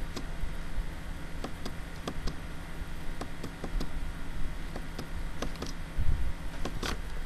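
Computer mouse clicking, a series of irregularly spaced clicks as colours are picked one after another in a colour chooser, over a steady low background hum. There is a low thump about six seconds in.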